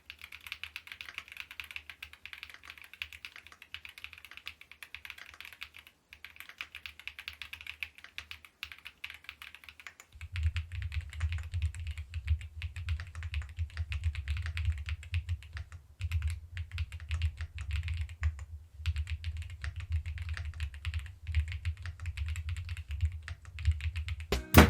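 Fast continuous typing on an Epomaker EK75 mechanical keyboard, a dense stream of keystroke clacks. About ten seconds in the keystrokes take on a much deeper, fuller thock.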